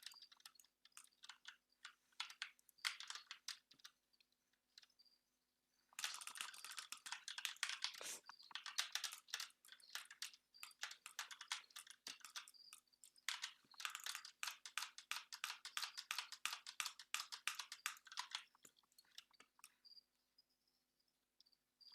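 Computer keyboard and mouse clicking: scattered keystrokes and clicks, breaking into two long runs of fast typing about six seconds in and again around the middle, then thinning out to a few clicks near the end.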